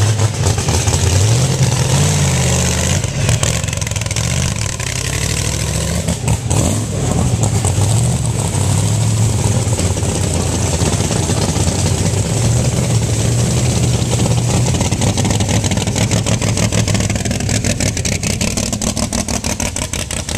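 Vehicle engine running, its pitch rising and falling as it is revved, with a rapid ticking clatter over it that is heaviest about six seconds in.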